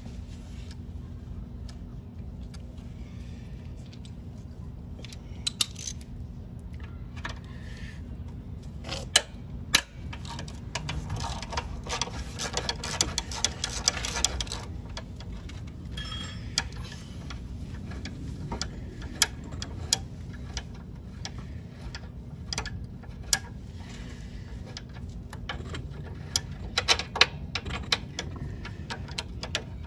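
Hand ratchet and socket turning a bolt out of the Honda CT90's frame, the pawl clicking in short runs with a longer run of rapid clicks near the middle, and separate sharp metallic clicks in between, over a steady low hum.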